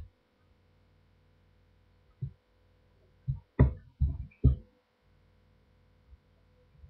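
Gloved hands packing and pressing bath bomb mixture into moulds in a stainless steel bowl, giving a handful of short, dull thuds and knocks bunched between about two and five seconds in, over a faint steady hum.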